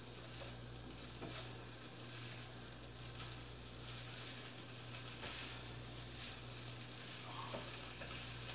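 Shredded chicken sizzling in a hot skillet as it is tossed and stirred with metal tongs, a steady frying hiss with faint scrapes of the tongs about once a second.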